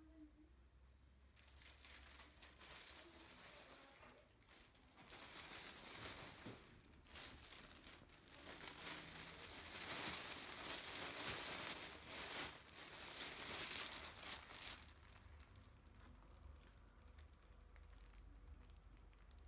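A thin plastic bag crinkling and rustling as a cat noses into it and pushes its head inside. The crinkling starts about a second in, is loudest around the middle, and dies down to faint rustling for the last few seconds.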